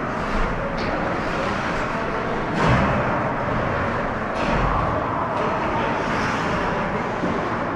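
Ice hockey game in a rink: skates scraping and carving on the ice and a few sharp knocks over a steady, echoing arena din, the loudest scrape about two and a half seconds in.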